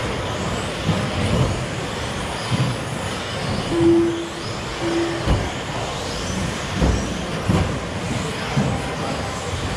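A pack of electric 1/10 scale RC stadium trucks with 13.5-turn brushless motors racing on an indoor carpet track. The motors whine up and down in pitch over a steady rush, and low thumps come now and then as the trucks land off jumps. Two short beeps sound a little before the middle.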